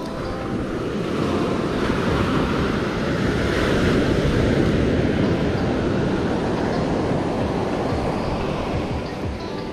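Surf breaking and washing up a sandy beach, a dense rushing noise that swells to its loudest about four seconds in and slowly eases. Wind buffets the microphone underneath.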